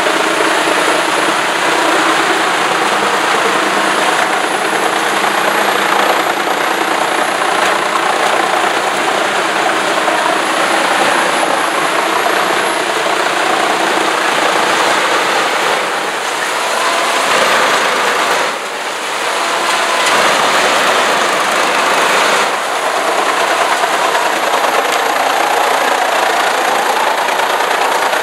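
Heizohack truck-mounted drum wood chipper running under load while a crane feeds it logs, chipping them into wood chips. The noise is loud and steady, with a few brief dips in level in the second half.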